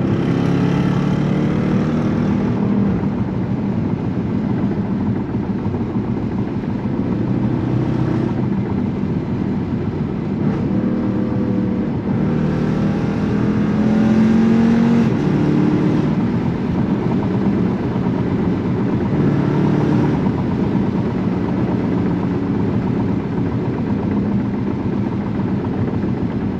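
Jeep Grand Cherokee SRT's 6.4-litre V8 with an aftermarket muffler exhaust, cruising with tyre and road noise, heard from inside the cabin. The engine pulls harder twice, shortly after the start and again about twelve seconds in, rising in pitch for a few seconds before settling back to a steady cruise.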